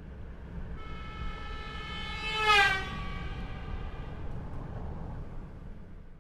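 A passing train: a steady low rumble of the wheels on the track, with the horn sounding as it approaches, loudest about two and a half seconds in, where its pitch drops as it goes by, then fading while the rumble runs on.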